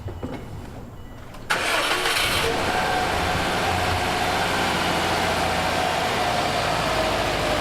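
2007 Subaru WRX's turbocharged flat-four engine starting about a second and a half in, then settling into a steady idle. It is being run just after an oil change to circulate the fresh oil.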